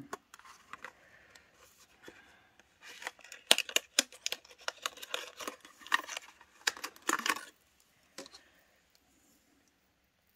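Clear plastic packaging sleeve crinkling and tearing as a pen is unwrapped, with a burst of crackles from about three to seven seconds in.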